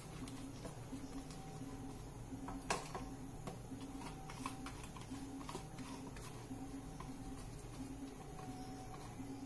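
Metal ladle stirring vegetables and spices in a pressure cooker on a gas stove, with scattered sharp clinks of the ladle on the pot, the loudest about three seconds in. Beneath it, a faint hum pulses about twice a second.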